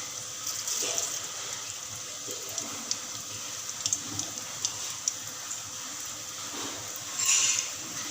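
Mustard seeds in hot oil in a pan: a steady sizzle with scattered pops as the seeds start to splutter, and a louder rush of sizzling about seven seconds in.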